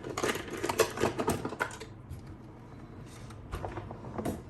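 A thin plastic prying sheet being cut at its scuffed edges: a quick run of crisp clicks and crackles for about two seconds, then a few scattered clicks.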